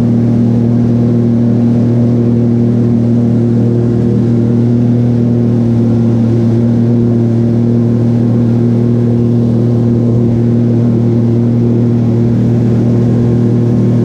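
Jet ski engine running at a steady cruising speed, a loud, constant drone that holds one pitch throughout.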